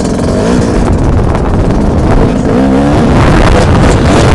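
Dirt bike engine revving up and down as the bike rides the course, with wind rushing over a helmet-mounted microphone. The revs rise and fall a few times, and it gets louder in the second half.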